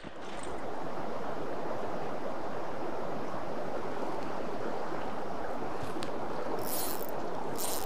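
Shallow, rocky mountain creek flowing, a steady even rush of water. A few brief high hisses come over it near the end.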